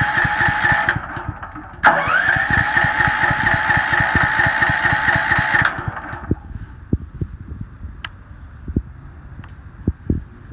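Electric starter cranking the Champion 100297 dual-fuel generator's engine without it catching: a steady whine with rapid compression pulses for about a second, a short pause, then a second crank of about four seconds. After the starter stops there are only scattered low thumps and a couple of clicks. The engine is slow to start because, on this first start, the fuel line probably still had to fill.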